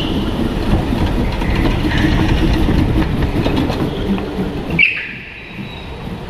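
Onboard go-kart noise: a steady rattling rumble from the kart and its tyres on the track, with a few short high squeals through the corners. About five seconds in, the rumble drops off sharply as the kart slows.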